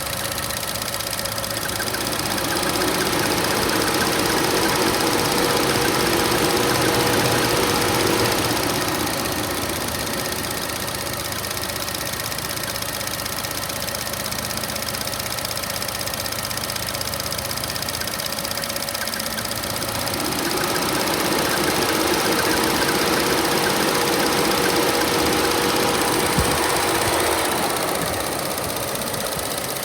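2014 Chevy Sonic's 1.4-litre turbo four-cylinder running with the air conditioning on, with a bird-like chirping squeal over the engine noise. Twice the sound swells for several seconds as a steady hum with a clear tone comes in, then drops back.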